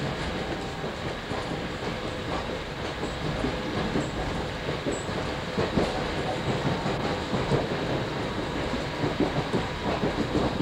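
Commuter train running at speed, heard from inside the passenger car: a steady rumble with the wheels clicking and knocking irregularly over rail joints, the knocks a little louder and more frequent in the second half.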